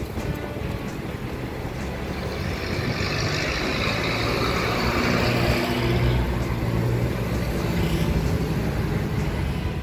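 The power soft top of a 1993 Chevrolet Kadett GSi convertible is running as the fabric roof lifts and folds back, with a steady motor hum. A hiss swells in the middle and fades again.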